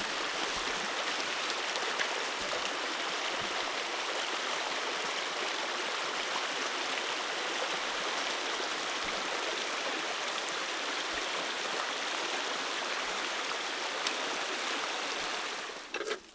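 Running water: a steady, even rush that cuts off suddenly near the end.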